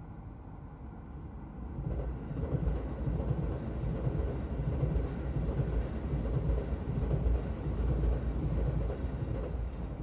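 Keio Line commuter train passing over a level crossing, its wheels rumbling on the rails. The rumble builds about two seconds in, holds steady, and eases off near the end as the last car clears.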